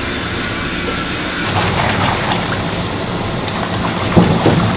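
Soybean oil pouring from a large tin into a big fryer vat, a steady splashing patter over a low hum of factory machinery. A few sharp knocks come near the end.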